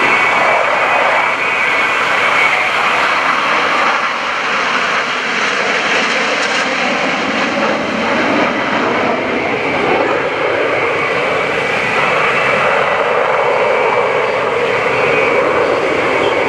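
Jet engines of two F/A-18 Hornets (General Electric F404 turbofans) flying overhead in a slow, gear-down formation pass: a loud, steady jet rumble.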